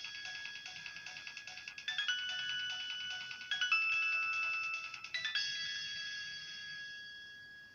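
Nokia 1200 mobile phone playing one of its built-in ringtones: several notes held together that change chord about every one and a half to two seconds, over a quick repeated ticking beat, fading out near the end.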